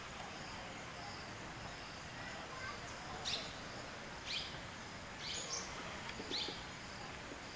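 An insect chirps steadily in pulses of about two a second, and from about three seconds in a bird gives a short, sharp call sweeping downward in pitch, repeated about once a second, over a steady background hiss.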